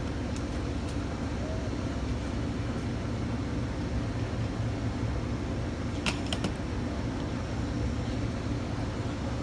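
Amtrak GE P42DC diesel locomotive idling steadily while standing, a low, even engine hum, with a couple of sharp clicks about six seconds in.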